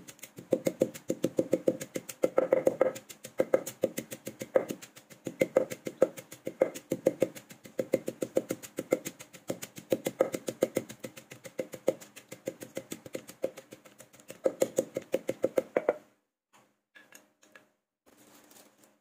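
Wooden pestle pounding chilies, garlic and salt in a deep wooden mortar: rapid, steady knocks that stop about three seconds before the end, once the mixture is crushed to a paste.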